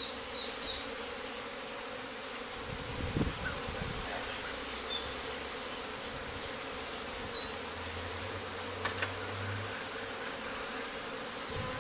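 Honey bees flying and buzzing in a dense cloud around an open hive, a steady drone, with a light knock about three seconds in and two sharp clicks about nine seconds in.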